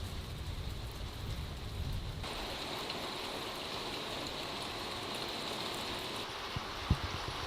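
Rain falling, an even hiss. About two seconds in it changes abruptly to a brighter hiss as a low rumble drops away, and a single short knock sounds near the end.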